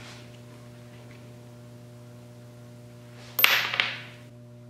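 Steady electrical mains hum, then about three and a half seconds in a hand tool clatters against the wooden workbench, a sharp knock followed quickly by a second smaller one.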